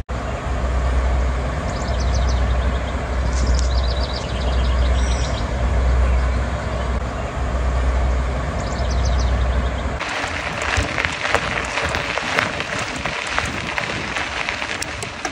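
Low wind rumble buffeting the microphone, with a bird giving short high trills twice. About ten seconds in this gives way to a bicycle's knobby tyre crunching and rattling over a gravel road.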